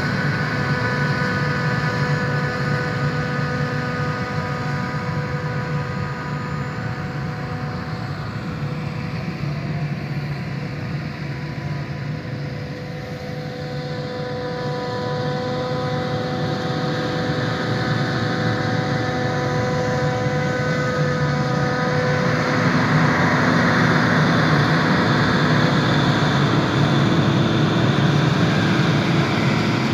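Self-propelled forage harvester chopping maize, its engine and chopper running with a steady whine over a low drone, alongside the tractor pulling the silage trailer. The sound dips around the middle, then grows louder and rougher in the last third as the whine fades out.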